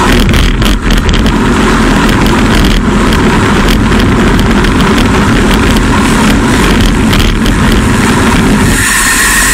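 Loud, steady wind rush and tyre noise from a road bike's camera at about 56–57 km/h. A little before the end the sound turns brighter, with a steady higher hum.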